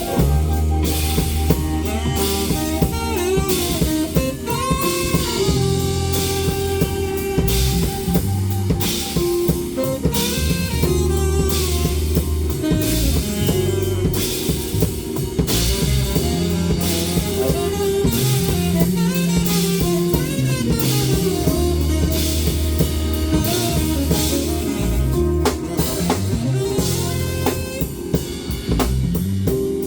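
A live band playing a blues-jazz groove on drum kit and guitar.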